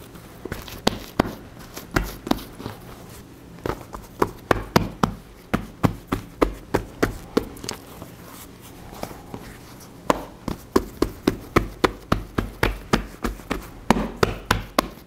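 Hands patting and pressing whole wheat bread dough flat on a floured granite countertop. Runs of quick pats come about three or four a second, with a pause in the middle.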